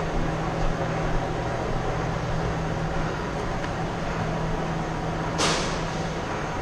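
A steady low mechanical hum over a noisy background, with one short hiss about five and a half seconds in.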